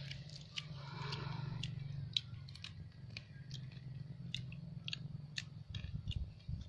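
Cooked prawns being peeled by hand and eaten: small crackles and clicks of shell breaking and chewing, scattered irregularly over a steady low hum.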